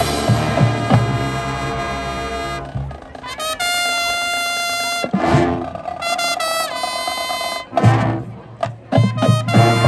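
High school marching band playing: the full band with drums at first, then a few seconds of held brass notes with short breaks between them, and the full band coming back in near the end.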